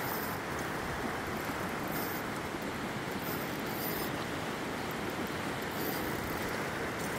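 Steady rush of a fast-flowing river running through rapids.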